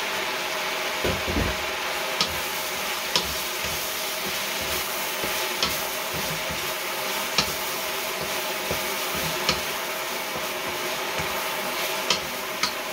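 Sliced horse mushrooms and chicken sizzling steadily as they fry in a metal pan, stirred with a spatula that knocks sharply against the pan about seven times.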